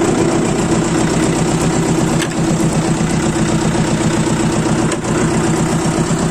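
Tractor engine running steadily as the tractor drives along, an even drone with a fast regular beat.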